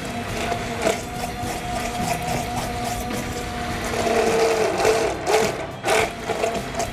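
Hand-held immersion blender running steadily in a container as oil is poured in, blending a milk-based truffle mayonnaise that had split back into an emulsion; it has nearly set. A few short knocks break through, about a second in and twice near the end.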